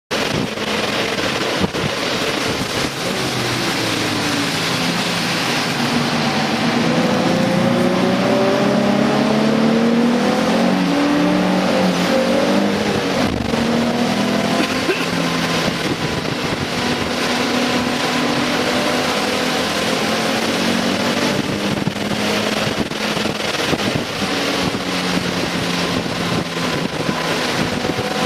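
Race car engines running on a wet track, several engine notes rising and falling and crossing one another as cars go by, thickest about a third of the way in, over a steady hiss.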